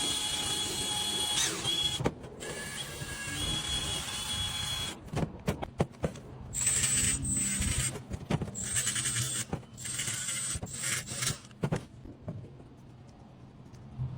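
A power tool running with a high whine, then in a string of short bursts through the middle, during brake-job work on a car.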